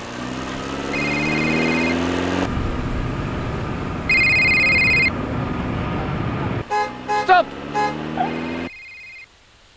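A car engine accelerating with its pitch rising, then a steady rushing noise. A car horn sounds three times: about a second in, around four seconds in, and briefly near the end. Short bursts of voices come before the last honk.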